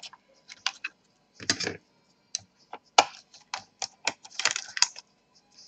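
Irregular sharp plastic clicks and snaps as an Acer Aspire 5742 laptop keyboard is pressed and pried free of its retaining clips. The loudest snaps come about one and a half seconds in and again about three seconds in.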